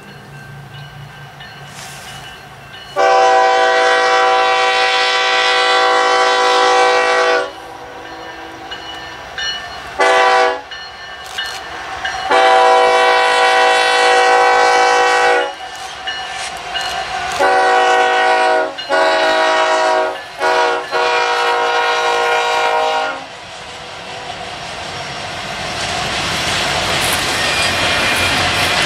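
Union Pacific diesel locomotive's multi-note air horn sounding a series of blasts: a long one, a short one, another long one, then a final long blast broken twice. Near the end the rising, steady rumble and clatter of the double-stack freight train's wheels and cars passing takes over.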